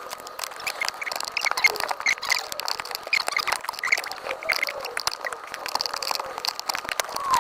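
Many small clicks and rattles of hand work on screws and plastic dashboard trim as a stubborn part is worked loose. Short bird chirps repeat in the background.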